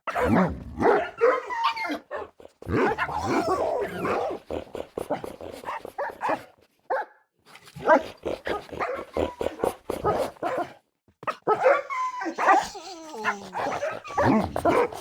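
Dogs barking, yipping and whimpering in quick succession, as a string of short clips with sudden cuts and brief silences between them. Near the end come several falling whines.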